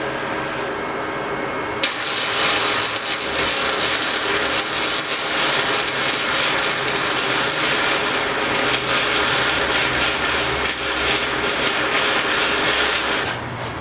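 Flux-core wire welder (Titanium Flux 125) running a weld bead on 16-gauge steel: the arc's dense crackle and sizzle starts about two seconds in and stops just before the end.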